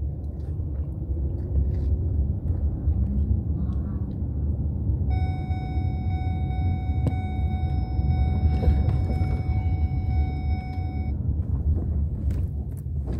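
Low, steady road rumble of a moving car heard from inside the cabin. A steady high-pitched tone sounds for about six seconds in the middle.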